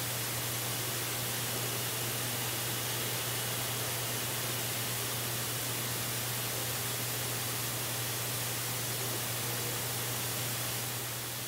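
Steady, even hiss with a constant low hum, the ambient noise of an outdoor webcam's microphone.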